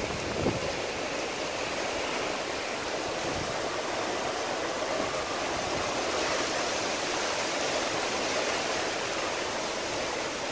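Heavy rain pouring steadily, a constant hiss of downpour splashing on the street and pavement.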